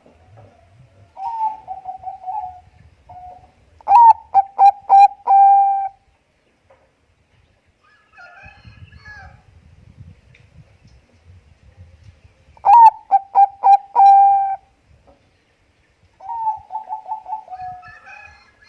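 Zebra dove (Bangkok perkutut) cooing: four phrases of quick stuttering coos, each ending in a held note. Two phrases are loud and two softer, with faint higher notes between them.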